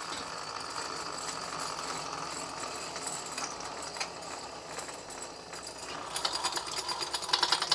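Wiz-z-z-er spinning top whirring steadily on its surface; about six seconds in it breaks into a fast rattling chatter of clicks.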